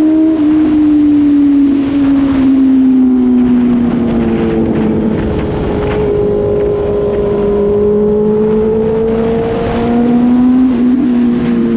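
Sport motorcycle's engine running at road speed under the rider, with rushing wind on the microphone. Its pitch sinks slowly over the first few seconds as the rider eases off, holds steady, then rises a little near the end.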